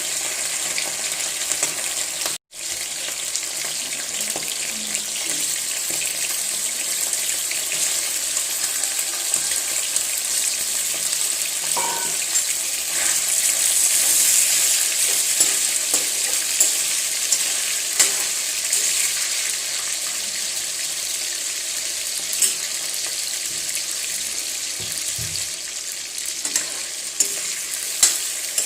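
Food sizzling as it fries in a hot pan, a steady hiss with an occasional sharp click of a utensil stirring.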